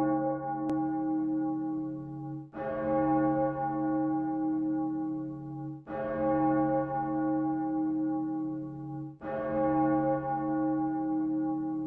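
A bell tolling slowly: three strokes about three seconds apart, each ringing on until the next.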